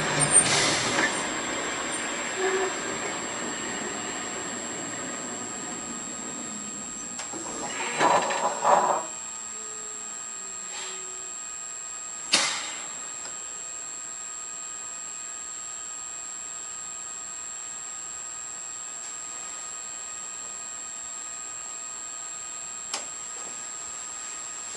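Tosaden Kotsu 1000-type tram slowing down and braking to a stop, with a loud squeal and rumble from the wheels and brakes about eight to nine seconds in. The tram then stands with a steady electrical hum, broken by one sharp clack about twelve seconds in and a faint click near the end.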